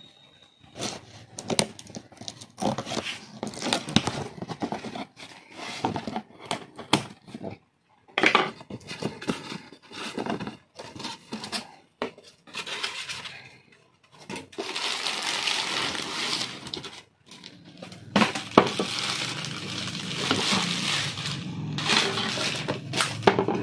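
Unboxing a stainless-steel rice cooker: cardboard box flaps and packing scraping and rustling, with sharp clicks. From about midway the plastic wrapping crinkles loudly in long stretches as the steel cooker is pulled out, with a few sharp knocks from the cooker.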